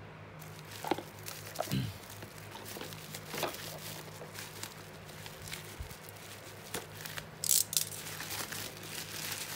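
Plastic bubble wrap rustling and crinkling as it is handled and unwrapped by hand, with scattered light clicks and a sharper crinkle about three-quarters of the way in. A low steady hum runs underneath.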